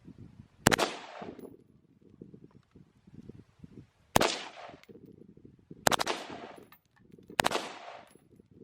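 Four gunshots fired one at a time at uneven intervals, the first about a second in and the last near the end, each sharp crack followed by a short decaying echo.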